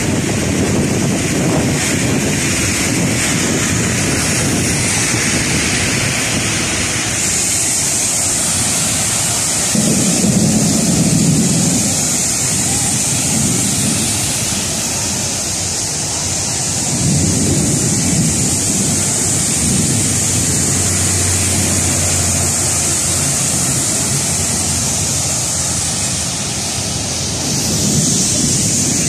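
Heavy rain falling steadily, with traffic passing on the wet road; the low rumble swells a few times, about ten seconds in, near the middle and near the end.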